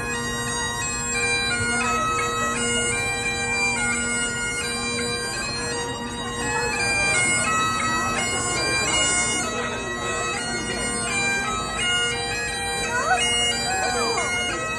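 Great Highland bagpipes playing a tune: the chanter melody steps from note to note over the steady hum of the drones. A few voices of bystanders come through near the end.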